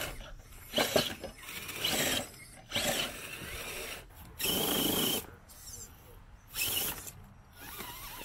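Radio-controlled rock crawlers' electric motors and geared drivetrains whining in short stop-start bursts of throttle as the trucks climb over rocks. One longer, steadier burst comes about halfway through.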